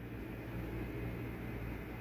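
Faint steady low hum with a light even hiss, with no distinct knocks or rustles standing out.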